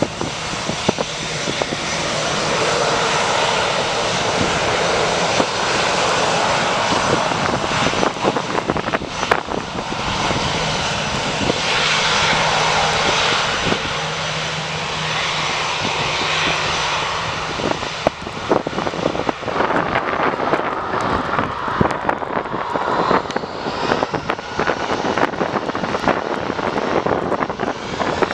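Jet airliner engines running close by, a dense steady rush with a rising whine near the end. Gusty wind buffets the microphone throughout.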